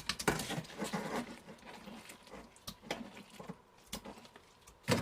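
Scattered small clicks and knocks, busier in the first second or so and then sparse, with one sharper knock near the end.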